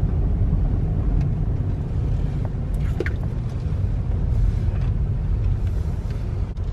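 Car cabin noise while driving slowly: a steady low rumble of engine and tyres.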